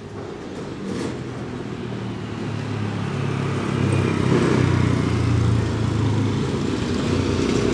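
A road vehicle's engine passing close by, growing louder to a peak about four to five seconds in, then easing a little.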